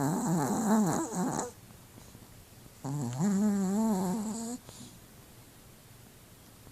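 A pet dog snoring in its sleep: two drawn-out snores with a wavering pitch, the second starting about three seconds in.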